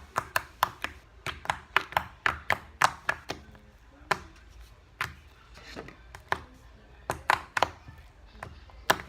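Sticky slime being worked by hand, giving irregular sharp clicks and pops, often several in quick succession.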